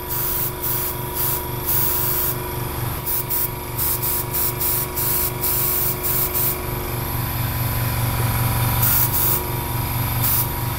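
Airbrush spraying paint onto a suede boot in short hissing bursts, some held longer, as the trigger is worked. Under it the small airbrush compressor runs with a steady pulsing hum.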